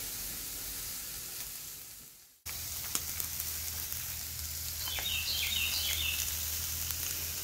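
Thin-cut pork chops sizzling on a Lodge cast iron charcoal grill. The sizzle fades and cuts off about two seconds in, then comes back steady.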